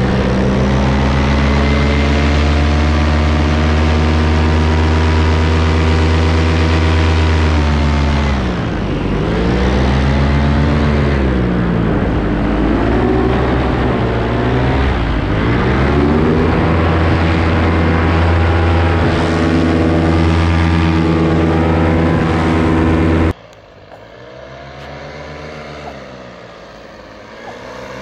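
Paramotor engine and propeller running loud and close at steady throttle. The pitch drops and climbs back twice as the throttle is eased off and reopened. About 23 seconds in, the sound cuts to a paramotor heard from the ground, much quieter, its pitch bending as it flies by.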